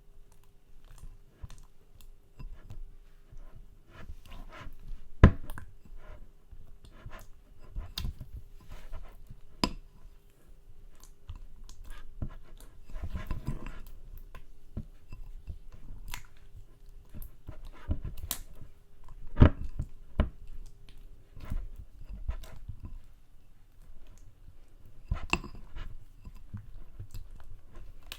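Glue slime being squished and stretched by hand: irregular sticky, wet pops and squelches, with a few louder pops.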